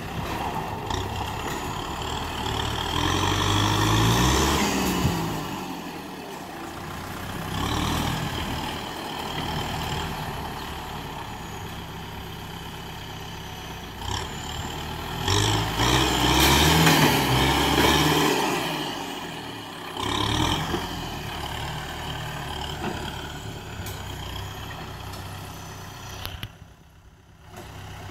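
Kubota M6040SU tractor's four-cylinder diesel engine running under load as its front blade pushes sand. It revs up and back down twice, about four seconds in and again in the middle, and drops out briefly near the end.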